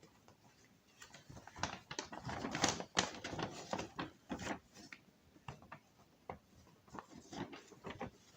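Rustling and clicking of cardboard packaging and paper leaflets being handled, busiest in the first half, then scattered.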